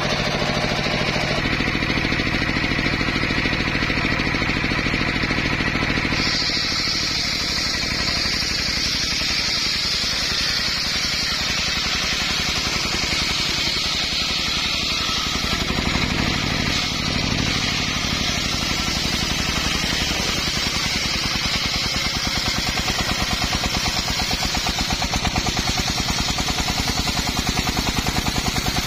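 Engine-driven circular sawmill ripping a teak log: the engine runs steadily under load while the large circular blade cuts through the wood. A higher, steady cutting tone comes in about six seconds in.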